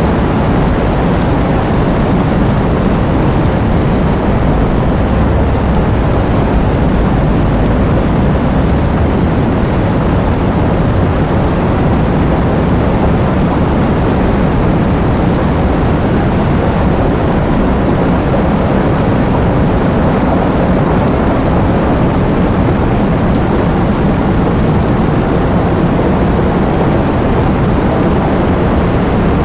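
Heavy rain falling steadily: a dense, even rush of noise, deep-toned and without breaks.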